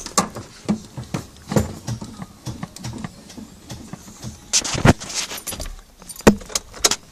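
Scattered knocks, clicks and rattles of someone moving about in a vehicle's cab and handling the camera, with sharper thumps about five seconds in and again a little past six; no engine running.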